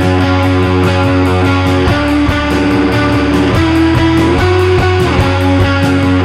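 Background rock music: strummed guitar over a steady beat.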